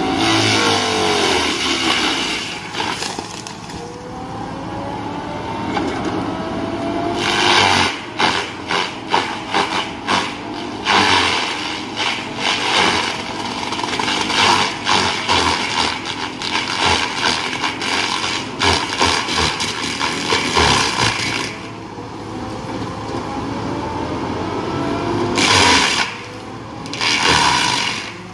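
A rotary drum mulcher head on a Cat excavator grinding into standing tree trunks over the excavator's diesel engine. The grinding comes in rough, crackling stretches, the longest from about a quarter of the way in to about three quarters. The engine's pitch rises and falls as the boom works.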